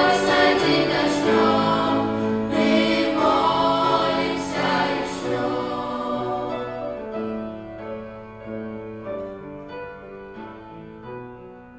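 Children's and youth choir singing the closing notes of a Russian worship song with instrumental accompaniment. About halfway through the singing stops and the accompaniment plays on alone, fading out.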